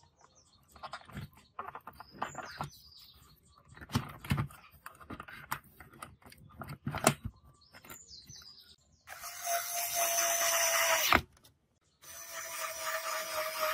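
Clicks and knocks of the power transformer and its wires being handled and set into the amplifier chassis. Then a cordless screwdriver runs twice, about two seconds each, with a steady whine, driving the screws that fasten the transformer; each run stops abruptly.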